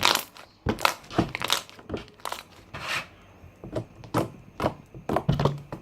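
Thick plain glue-and-borax slime being worked to make popping sounds: about fifteen sharp, irregular pops and clicks, the first the loudest.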